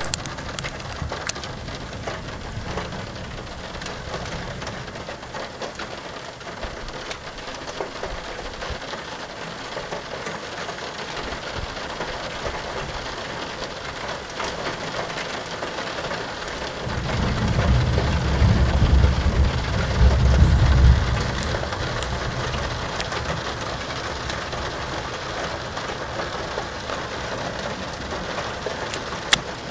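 Steady rain falling throughout, with a long low rumble of thunder that swells about two-thirds of the way in and fades after a few seconds, the loudest thing here. A single sharp click near the end.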